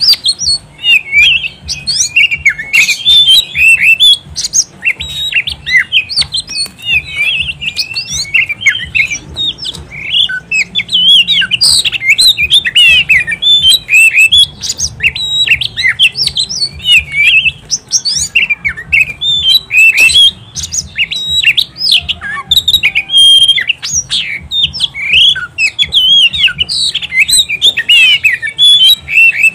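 Oriental magpie-robin (kacer) singing a long, fast, varied song of many short whistled and chattering notes, without a break.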